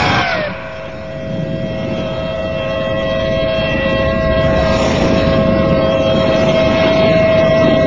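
Outdoor tornado warning siren sounding a steady, unwavering tone over heavy wind rumble, growing louder over the first few seconds.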